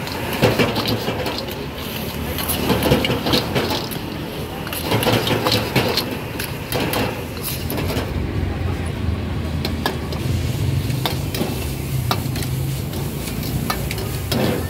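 Street-food stall cooking sounds: metal utensils repeatedly clicking and scraping while food sizzles, over a low steady motor hum that grows stronger about halfway through.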